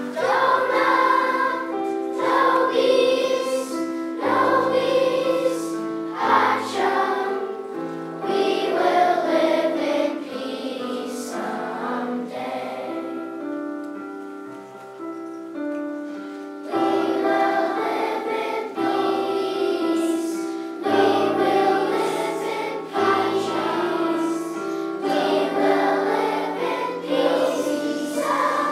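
Children's choir singing a song in long held notes over a low sustained accompaniment.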